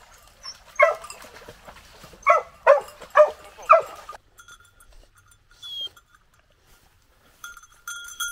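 Hunting hound, a beagle, barking: five short, loud barks in about three seconds.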